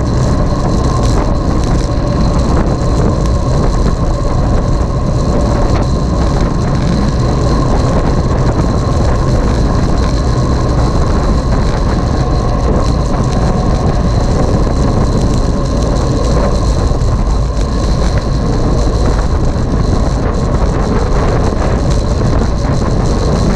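Loud, steady wind rumble buffeting the microphone of a camera moving at speed, with no break or change.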